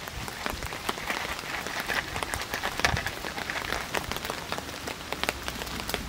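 Popcorn kernels popping in a covered pan held over a wood campfire: a dense, irregular patter of sharp pops that sounds much like rain.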